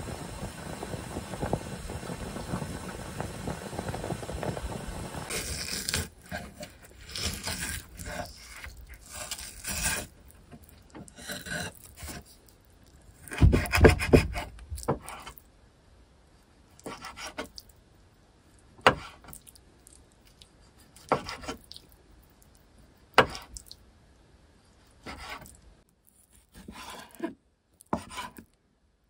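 A pot of water at a rolling boil bubbling for the first few seconds, then a kitchen knife cutting raw red fish on a wooden end-grain cutting board: scraping, sawing strokes and knocks of the blade on the board, loudest about halfway through, then single cuts roughly every two seconds.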